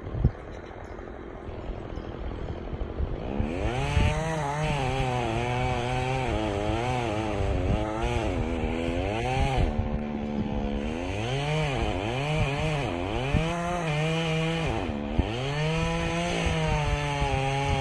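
Chainsaw running at low revs for about three seconds, then revved up and cutting into a burnt ponderosa pine trunk, its pitch repeatedly dipping and rising as the chain loads and frees in the wood.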